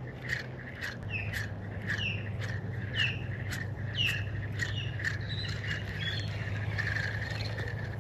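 Birds calling: a run of short, falling chirps, about two a second, with sharp clicks among them.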